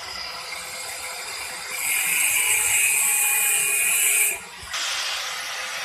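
Handheld angle grinder with a thin cutoff disc running. From about two seconds in to just past four it cuts through a 304 stainless steel rod with a loud, high-pitched screech, then spins on freely.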